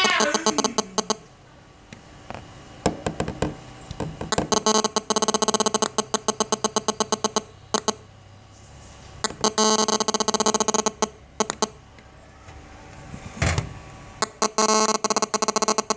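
Buzzy electronic tone from a small phone speaker, pulsing rapidly in bursts of one to three seconds with short gaps between them. A dull thump about thirteen seconds in.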